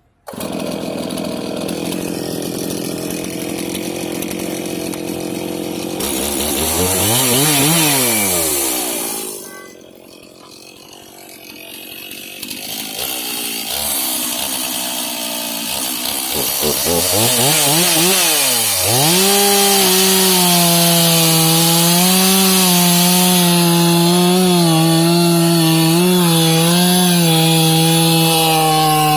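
Stihl MS 391 two-stroke chainsaw revved up and back down twice, then held at high revs for the last third, its pitch dipping slightly under load as it cuts through a pine log.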